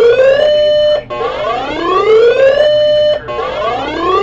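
Electronic alert tone on a broadcast emergency alert, repeating about every two seconds: a rising whoop, then a short steady tone. It cuts off abruptly as a severe thunderstorm warning message begins.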